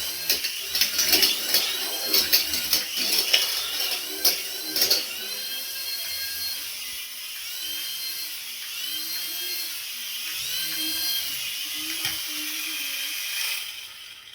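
A small electric toy motor whirring in repeated spurts, each one spinning up, holding and winding down, after several seconds of clicking and rattling handling of plastic parts.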